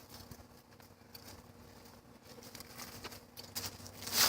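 Light, irregular patter of scuffling feet and paws as a person and a dog tussle, getting busier toward the end and ending in a louder rush of scuffing noise.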